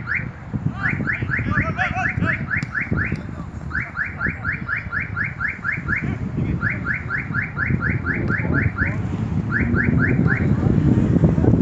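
A car alarm sounding a quick rising chirp over and over, about five a second, in runs of about two seconds with short pauses between, over a low rumble.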